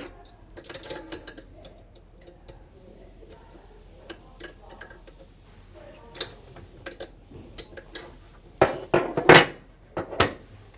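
Wrench and metal plumbing fittings clinking and knocking as valve blocks are unscrewed from the faucet risers and shutoff valve, with scattered light clicks and a cluster of louder knocks near the end.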